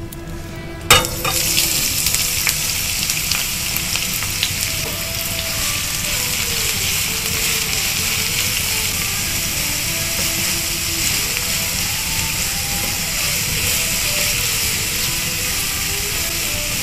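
Sliced red and white onions tipped into a hot oiled frying pan about a second in, then sizzling steadily as they are stirred with a silicone spatula.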